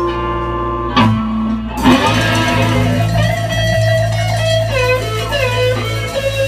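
Blues band playing live with slide guitar. A held chord gives way to a sharp struck accent about a second in, then the slide guitar plays gliding, bending notes over a sustained low bass note.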